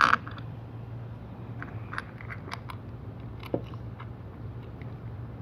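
Small metal clicks and scrapes of hold-down bolts being fitted into the T-slots of a drill press XY table, with a sharper knock right at the start.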